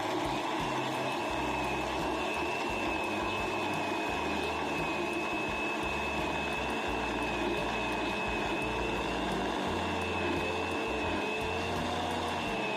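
Electric blender running steadily, its motor giving a constant high whine over the churning noise of a drink being blended.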